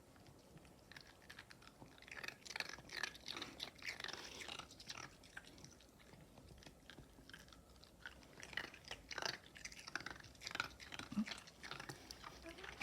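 Bichon frisé crunching and chewing ice: quick runs of crisp crunches starting about two seconds in, a short pause, then more crunching.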